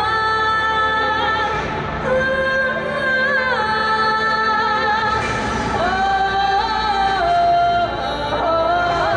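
Music with a woman singing long held notes that waver and bend in pitch, over a steady accompaniment.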